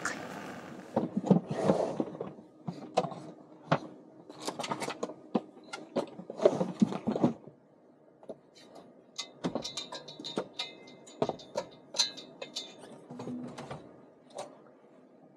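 Things being handled at close range: a run of uneven clicks, knocks and light rattles as objects are moved, opened and set down, with a brief thin high ringing about two-thirds of the way through.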